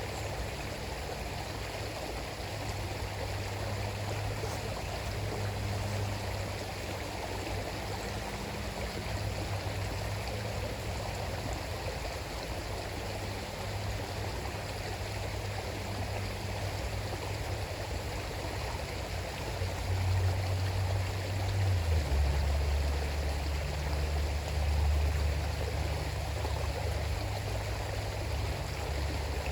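River water flowing steadily, a continuous rushing with a low rumble underneath that grows louder about two-thirds of the way through.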